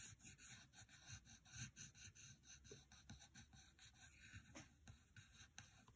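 Faint scratching of a pencil on paper in many short, quick strokes.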